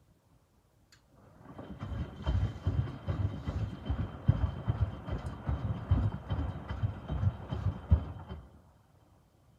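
Miele W2573 front-loading washing machine turning its drum during the cooldown stage of a 75 °C wash. There is a click about a second in, then for about seven seconds the wet microfiber cloths slosh and thud in the water over a steady high motor whine, until the drum stops.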